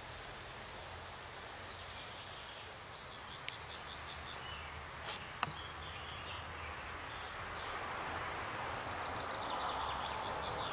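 Honeybees buzzing in a steady hum around their hives, swelling near the end, while a songbird sings two phrases of quick repeated high notes. Two sharp clicks come about midway.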